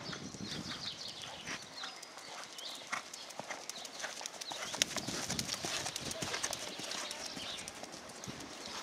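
Grey horse's hooves striking the sand arena as it trots under a rider, a run of repeated hoofbeats.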